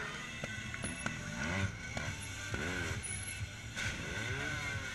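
Trials motorcycle engine blipped in short revs about three times, each rising and falling in pitch, over a steady low running hum, as the bike is worked up a ramp onto a truck roof.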